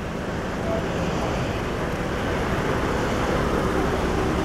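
Steady low rumble of motor vehicle and traffic noise, growing slightly louder.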